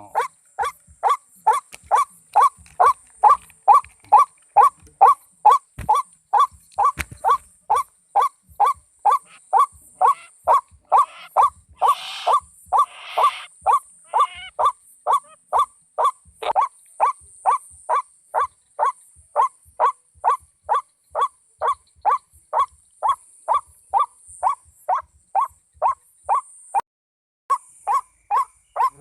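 White-breasted waterhen call played as a trapping lure, the same short note repeated very evenly about twice a second. It breaks off briefly near the end and starts again.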